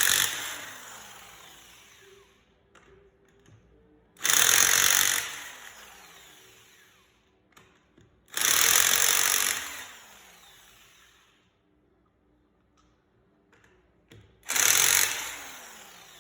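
Electric impact wrench loosening a wheel's lug nuts in four short bursts of about a second each, every one followed by the motor winding down. There are small clicks in between.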